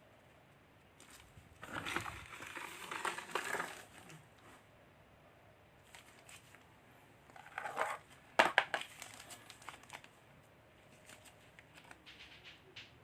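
Packaging being handled and opened, crinkling and rustling in two bouts, with a sharp snap about eight and a half seconds in.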